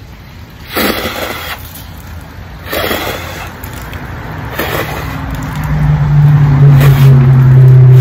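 A man spitting mouthfuls of saliva-soaked birdseed in short sprays, about four of them a second or two apart. In the second half a loud, steady low drone builds up and becomes the loudest sound.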